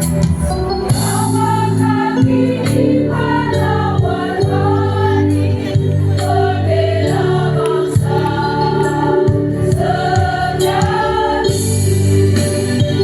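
Choir singing with instrumental accompaniment, the voices moving through a melody over steady low backing notes.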